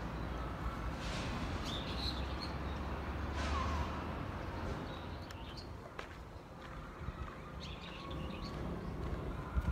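Small birds chirping in short, high calls, several times, over a steady low rumble.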